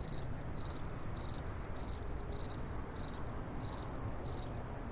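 A cricket chirping, about two high-pitched chirps a second, each chirp a quick run of pulses, over a faint steady background hiss.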